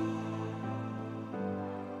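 Background music: a soft instrumental with sustained notes that change about every two-thirds of a second.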